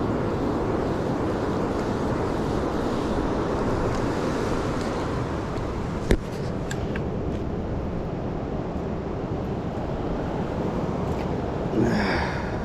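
Steady rush of a fast-flowing river. About six seconds in there is a single sharp knock, followed by a few faint clicks.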